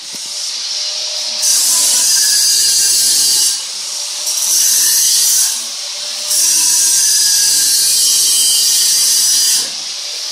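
Power tool running in three bursts with a loud, high-pitched hissing whine; the last burst is the longest, about three seconds.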